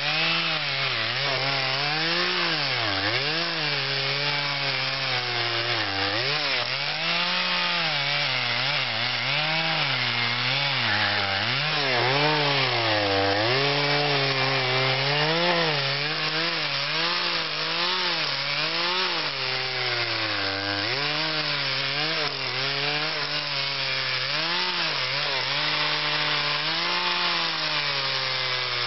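Husqvarna two-stroke carving chainsaw running continuously and cutting into cottonwood, its engine pitch rising and falling every second or two as the throttle is worked and the chain bites into the wood.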